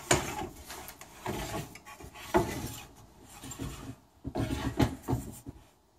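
A wooden board sliding and scraping across the metal table and fence of a miter saw while it is shifted into position by hand, in several short scrapes and knocks.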